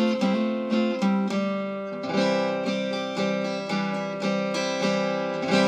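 An acoustic guitar strummed chord by chord with no singing. The strokes come quickly for about two seconds, then slow to about two a second. A louder chord near the end rings on.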